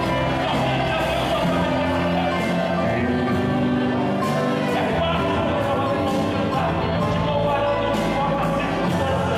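Live gospel worship music: a man singing into a microphone over instrumental accompaniment, with long held sung notes.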